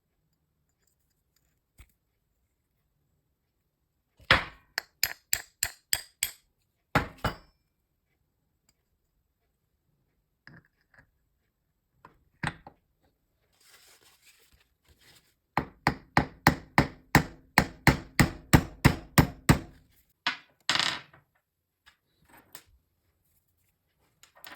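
Hammer blows in runs: about six quick taps, two more a moment later, then a longer run of about four taps a second lasting some four seconds, with a faint ringing under the later taps.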